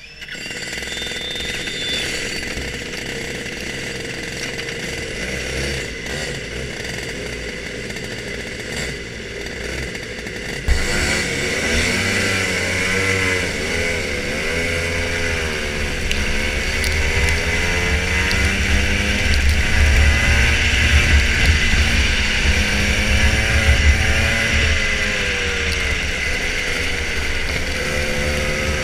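Rotax Junior Max 125cc two-stroke kart engine running at low revs, then from about eleven seconds in revving up and down, its pitch rising and falling repeatedly as the kart pulls away and drives on.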